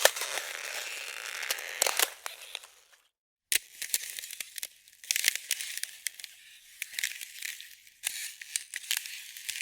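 Ice cracking and crackling in dense runs of sharp clicks. About three seconds in it cuts off to half a second of silence, then resumes as a thinner, higher-pitched crackle in bursts.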